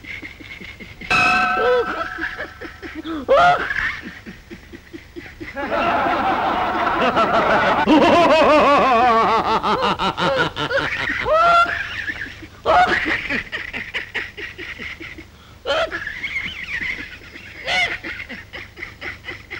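Laughter in short repeated fits, with several voices laughing together for a few seconds in the middle.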